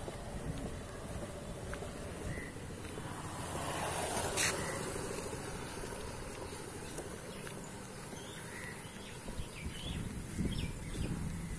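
Outdoor roadside ambience on foot: a steady high insect drone over low background rumble, with a brief louder rush of noise about four seconds in.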